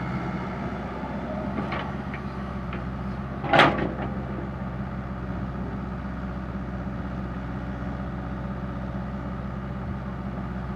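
Komatsu PC60-5 excavator's diesel engine running steadily, with a few faint clicks and one short, loud knock about a third of the way in.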